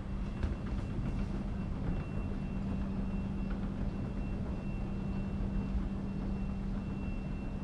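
Escalator running, a steady low mechanical hum and rumble while riding down it.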